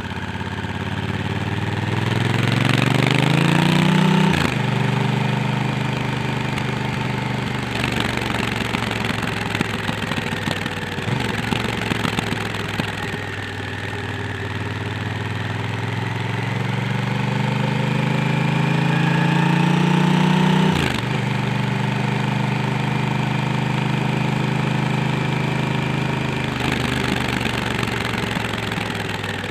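Honda Africa Twin's parallel-twin engine under way, rising in pitch as the bike accelerates. The pitch drops sharply at about 4 s and again at about 21 s as it shifts up, with steady wind and road noise on the helmet microphone.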